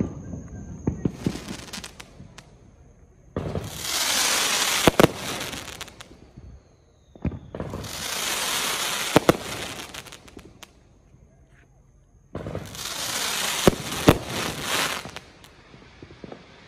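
Consumer fireworks going off: three hissing, crackling barrages of two to three seconds each, spaced a few seconds apart, each with a sharp bang inside it. A few small pops come about a second in.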